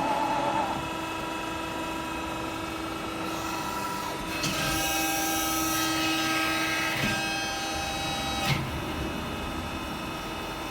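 Servo-driven hydraulic drive of a CNC press brake whining steadily through a bending cycle, growing higher and louder from about four and a half to seven seconds in.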